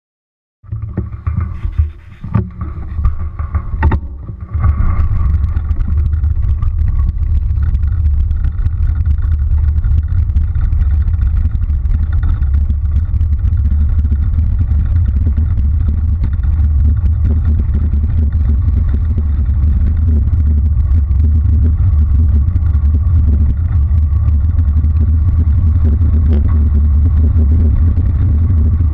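Wind buffeting the microphone of a bicycle-mounted action camera, with tyre noise from the road, as the bike coasts downhill: a steady loud low rumble. Over the first few seconds it is uneven, with several knocks and rattles from the bike rolling over the rough surface, before it settles into the steady rush.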